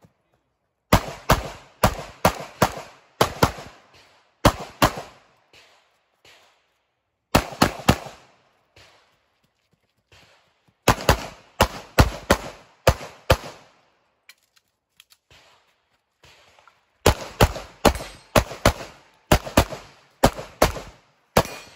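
Pistol shots fired in quick pairs about a third of a second apart, in strings of several pairs broken by pauses of a few seconds.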